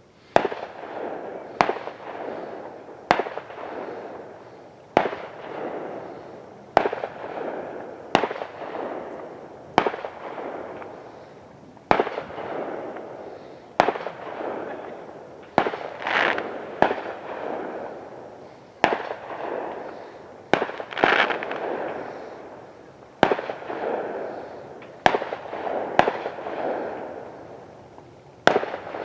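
Fireworks going off in a steady series of sharp bangs, one about every one and a half to two seconds, each trailing off over a second or so before the next.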